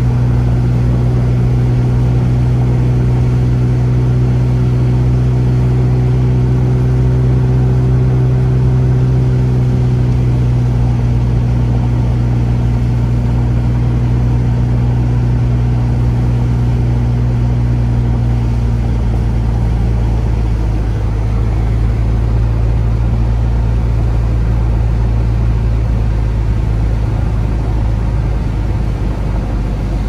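A car driving at a steady pace, with steady engine hum and road rumble. The low hum softens a little about two-thirds of the way through.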